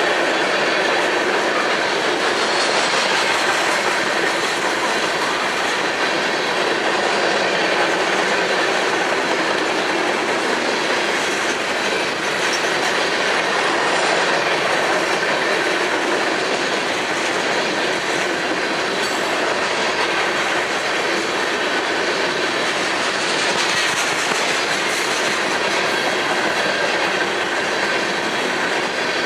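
Railroad cars of a passing train rolling by at steady speed, with wheel-on-rail noise, clacking over the track and a faint high wheel squeal.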